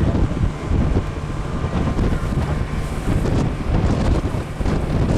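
Wind buffeting the microphone on a small boat running fast across the water, with the boat's motor droning steadily underneath.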